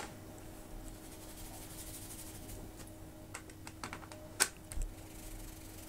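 A few light clicks and taps, the loudest about four and a half seconds in, from a paintbrush working in watercolour pans and on a palette while mixing paint, over a faint steady hum.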